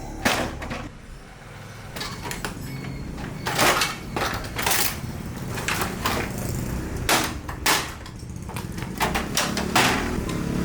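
Irregular knocks, cracks and short scraping noises of a television being broken apart and dismantled by hand with tools. The loudest ones come about half a second in, around a third and halfway through, and near the end.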